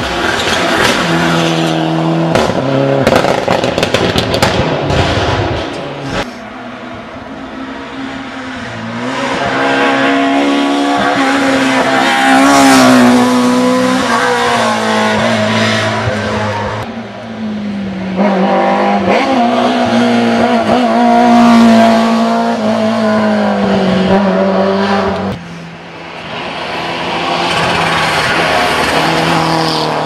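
Rally cars at full speed on a tarmac stage, engines revving hard and rising and falling in pitch through the gears as they pass. There are several separate passes, with sharp cracks in the first few seconds.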